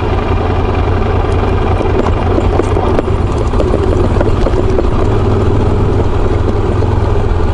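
Ducati motorcycle engine running steadily while the bike rides along a gravel track, with a few light ticks scattered through.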